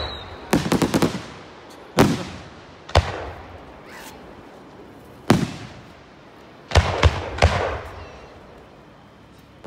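Aerial fireworks going off overhead: a rapid cluster of bangs about half a second in, then single sharp bangs every second or two, with another quick run of three near the end, each trailing off in an echo.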